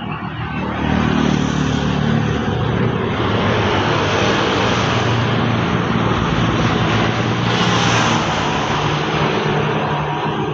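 Steady engine noise from a passing motor: a low hum with an even hiss over it, fading just after the end.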